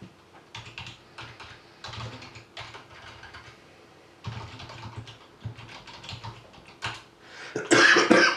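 Computer keyboard typing in short flurries with pauses between them, followed near the end by a brief, louder scuffing noise.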